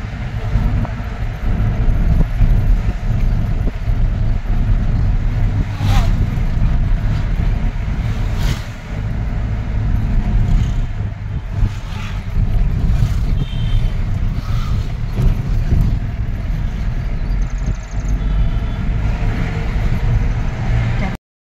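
Steady low engine and road rumble from inside a moving shared jeep, with a few knocks scattered through it and a few short high beeps near the middle.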